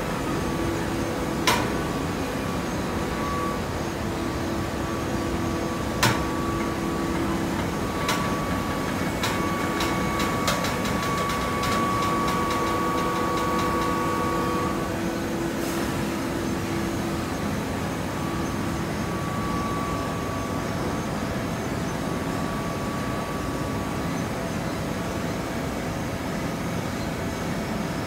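TCM horizontal hydraulic baler running with a steady hum, broken by a few sharp clanks and a quick run of metallic clicks about a third of the way in.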